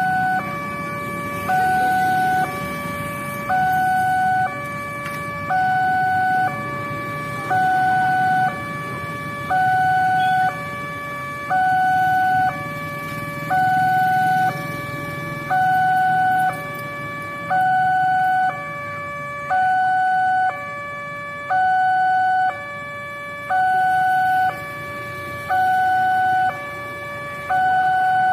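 Railway level-crossing warning alarm from the loudspeaker on the signal post: an electronic two-tone chime alternating steadily between a higher and a lower note, each about a second long. It sounds while the barriers are down to warn of an approaching train. A low rumble of road traffic runs underneath for the first two-thirds.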